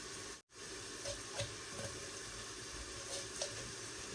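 A steady faint sizzle from onions frying in a pan, with a handful of short knocks and taps from a knife working through a whole raw chicken on a chopping board. The sound drops out completely for a moment about half a second in.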